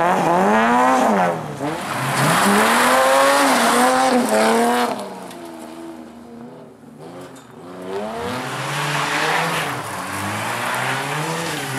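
Race car engines revving hard on a gravel slalom course. An Opel's engine climbs and falls in pitch several times over the first five seconds as it is thrown through the turns, then the sound drops away for a couple of seconds. From about two-thirds of the way through, a Skoda 100's engine comes in and revs with a slowly rising pitch.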